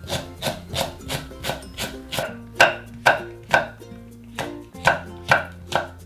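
Ceramic kitchen knife chopping through green onion and then red chili pepper onto a wooden cutting board, in steady strokes about two or three a second. The strikes get louder about halfway through. Light background music plays underneath.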